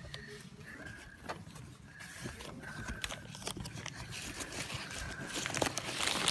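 Cardboard box flaps being opened, then hands rummaging through foam packing peanuts and plastic-wrapped candy packets: scattered scrapes and rustling that grow steadily louder toward the end.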